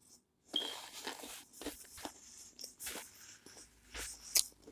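A person chewing a mouthful of taco and nachos close to the microphone: a run of short, irregular mouth clicks and smacks.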